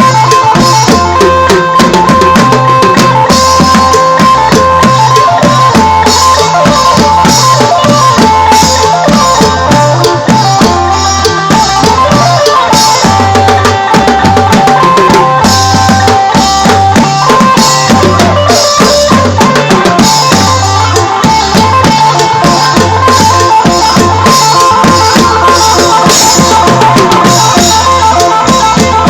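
Loud Isan phin prayuk band music: an amplified phin lute melody over a driving drum beat and a deep stepping bass line.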